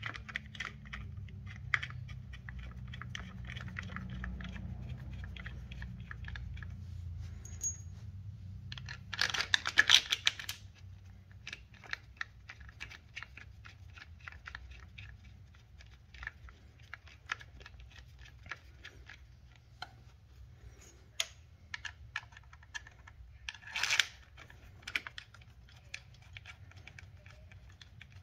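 Small metal parts clicking and rattling as bolts are threaded by hand to mount a chain case saver against an ATV engine case. There are two louder bursts of clicking, about ten seconds in and again later.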